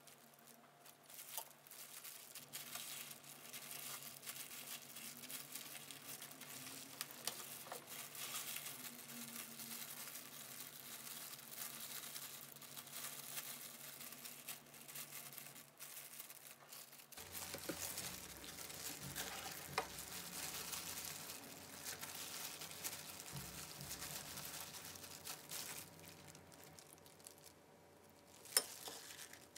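Thin disposable plastic gloves crinkling and rustling as hands wrap a rice ball in a kale leaf and handle a cabbage leaf, with one sharp tap near the end.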